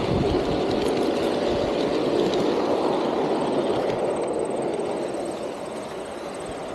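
Garden-scale model train running along its track, heard from aboard one of its cars: a steady rolling rumble of wheels on the rails that eases off somewhat over the last couple of seconds.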